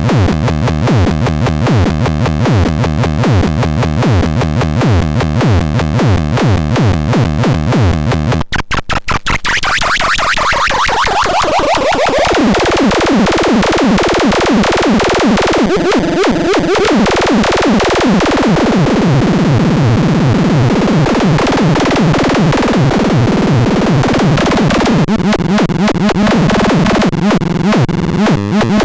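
Synthesized electronic sound from the Pharatron 2: a fast repeating sequenced pattern that breaks off briefly about eight seconds in, then comes back with a falling sweep and carries on as a dense pulsing texture.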